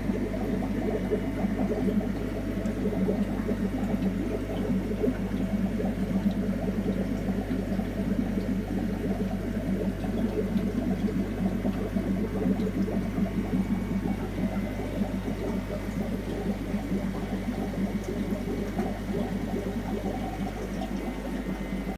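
Aquarium sponge filters bubbling steadily, air streaming up through the tank water, over a steady low hum.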